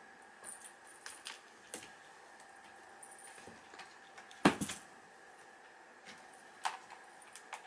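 Irregular light plastic knocks and taps as a cat bats a roly-poly toy against a plastic laundry basket, with one louder knock about halfway through.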